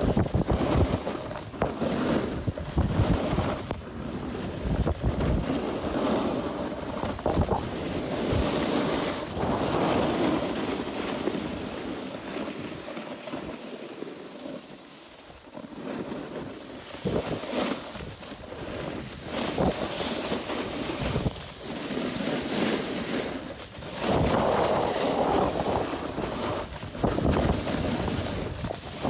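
Wind buffeting a phone's microphone at speed, mixed with the hiss and scrape of snowboard edges on packed snow, surging with each turn. It drops off around the middle as the pace slows on a flatter stretch, then picks up again.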